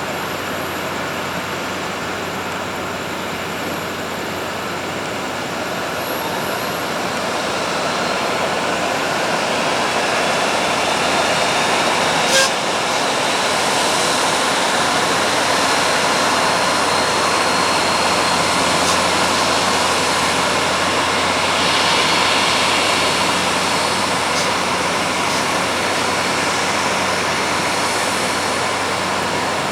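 Jet airliner engines, a steady rush of noise with a faint high whine that grows a little louder partway through. A single sharp click comes about twelve seconds in.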